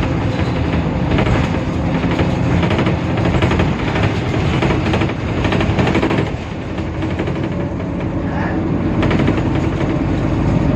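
Temsa Avenue LF city bus under way, its DAF PR 228 diesel engine running with a dense, constant rattling over a low hum; the sound eases slightly about six seconds in.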